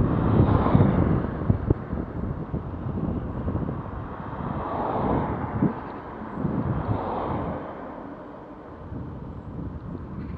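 Wind rumbling on the camera's microphone while cycling along a road, strongest in the first couple of seconds. Cars go past in the other direction three times, each rising and fading, the first right at the start and two more about five and seven seconds in.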